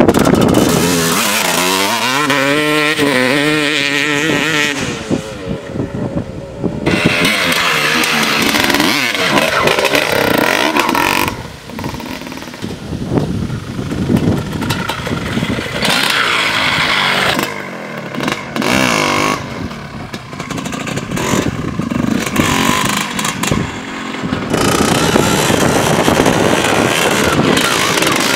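Honda CR250 single-cylinder two-stroke motocross engine ridden hard, revving up and down again and again with its pitch rising and falling. The throttle shuts off briefly a few times before the engine revs up again.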